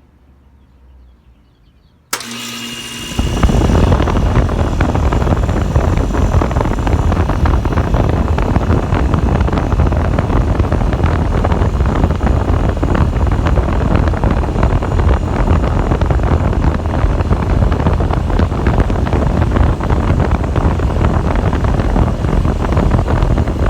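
Trane XE1000 heat pump outdoor unit starting up: a sudden switch-on about two seconds in with a brief hum, then about a second later its reciprocating compressor and condenser fan come up to a loud, steady run.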